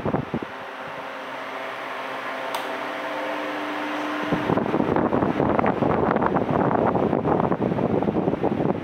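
Electric pedestal fan running: a few clicks at the start, then a steady motor hum that slowly grows louder. About halfway through, its air stream starts buffeting the microphone with a rough, rumbling rush.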